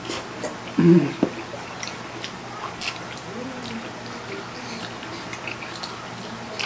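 Two people eating spicy instant noodles: close-up chewing and mouth noises with scattered small clicks, likely forks on the plate. About a second in there is one brief, louder sound with a low pitch to it.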